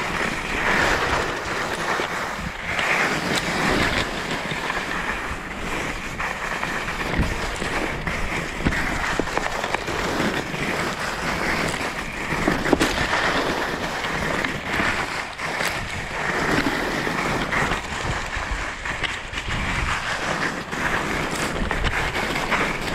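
Skis sliding and scraping over lumpy, chopped-up snow on a downhill run, with steady wind rushing over the microphone and frequent irregular knocks as the skis hit bumps.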